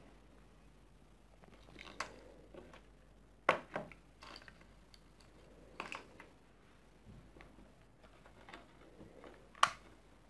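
Small handling noises from craft work: a few sharp clicks and taps at irregular moments over faint room tone. The loudest come about three and a half seconds in and again just before the end.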